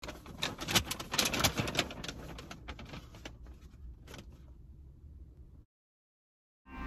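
A quick, irregular run of clicks and knocks over a low hum, thinning out and dying away, then cutting to dead silence about a second before the end.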